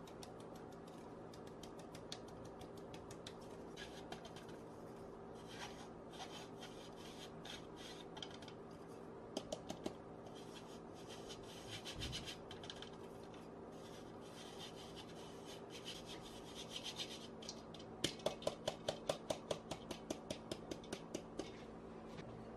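Cake flour being sifted through a fine metal mesh sieve into a glass bowl: a dry, crackly rasp as the sieve is shaken and the flour rubbed through the mesh by hand. Near the end comes a run of light taps, about three to four a second, which then stops.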